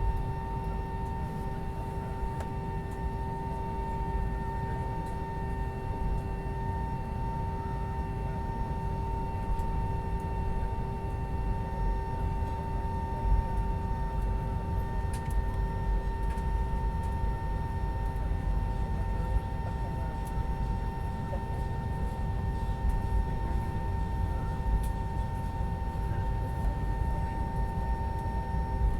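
Cabin noise of an Airbus A320 taxiing after landing: a steady low rumble under the steady whine of its IAE V2527 engines at idle, with a few faint clicks.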